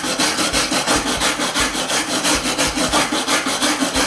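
Steel wire brush scrubbing a heavily rusted steel plate in quick, even back-and-forth strokes, about three a second, a harsh scraping that knocks off the loose, coarse rust before rust remover is applied.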